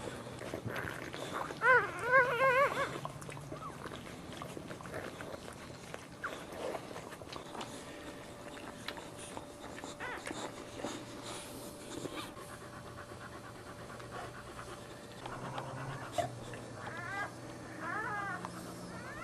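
Newborn Boxer puppy crying: a high, wavering squeal lasting about a second, about two seconds in, and again more faintly near the end. The mother Boxer is panting.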